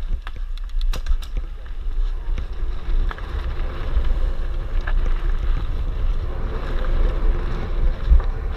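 Wind buffeting a GoPro's microphone on a mountain bike rolling down a dirt and gravel trail, with tyre noise on the gravel. A few sharp clicks and rattles from the bike come in the first second or so.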